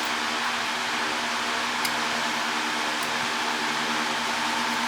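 Steady hum and hiss of a fan running, with one faint click about two seconds in.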